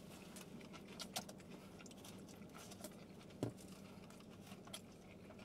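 Faint eating noises: chewing and scattered small clicks and rustles from handling a paper taco wrapper and a plastic water bottle, over a steady low hum.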